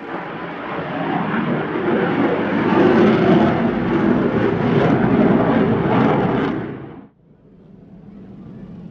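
HAL Tejas fighter's single GE F404 turbofan at display power as the jet pulls up into a steep climb. It is a loud rushing jet noise that builds over the first few seconds. It cuts off suddenly about seven seconds in, leaving only a faint background noise.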